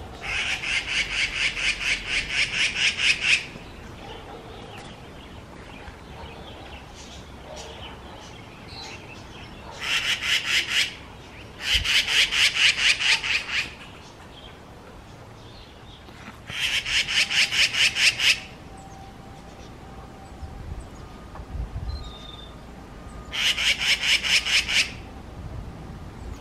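Magpies giving harsh, rasping chatter calls in five bursts of rapidly repeated notes, about four a second, each burst one to three seconds long and growing louder toward its end: scolding and mobbing a cat.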